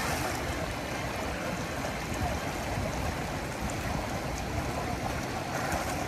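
Steady rushing of the fast-flowing Ganges river current.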